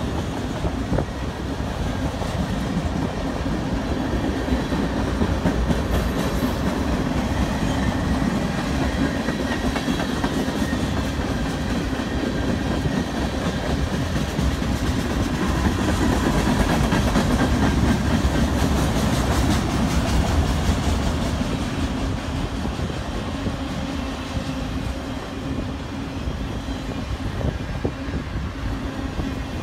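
Mixed freight train's cars (autoracks and tank cars) rolling past on the rails: a steady running sound that grows a little louder in the middle and eases off near the end.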